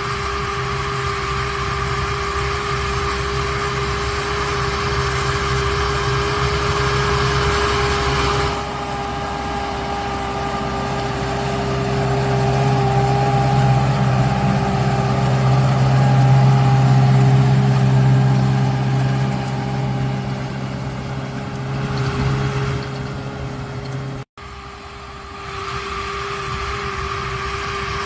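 Large diesel farm machinery running steadily: a deep engine drone with a steady tone above it. The sound changes abruptly about eight seconds in, swells louder through the middle, and cuts out for an instant about three-quarters of the way through.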